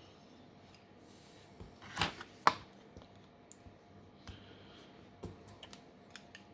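Scattered small clicks and taps of handling a smartphone's parts and repair tools. The sharpest two come about two seconds in, with another near five seconds in.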